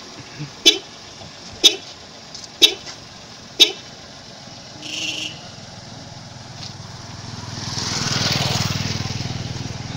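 Tata Altroz giving short warning beeps about a second apart, four times in the first four seconds: the car's alert that the smart key has been taken out of the car while the engine is running. Near the end a vehicle's engine sound swells and fades.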